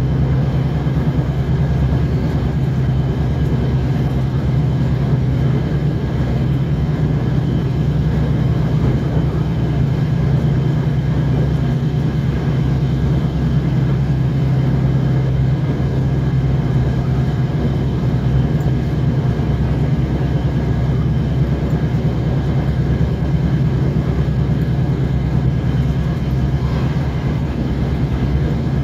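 Steady low drone of a DR1A diesel multiple unit's diesel engine running at speed, with the rumble of the wheels on the rails, heard from inside the carriage.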